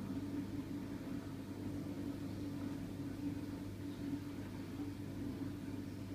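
Acer laptop's cooling fan running with a steady hum.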